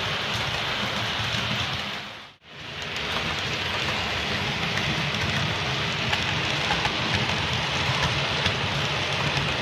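Running noise of an OO gauge Hornby HST model train: a steady whirr of the motor and rattle of wheels on the track, with no engine sound fitted. It dips away for a moment about two and a half seconds in, then resumes with faint clicks.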